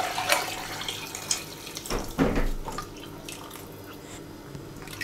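Chicken broth poured from a saucepan into a steel soup pot of thin flour-and-water base, a steady splashing pour that slowly tapers off. A dull knock comes about two seconds in.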